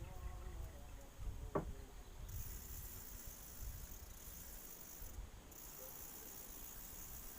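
High-pitched, steady insect chirring that starts about two seconds in and breaks off briefly near the middle, after a few low rumbling knocks.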